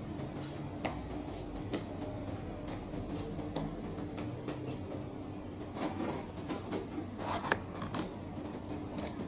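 Steady low hum with scattered light clicks and clatter, busiest from about six to eight seconds in.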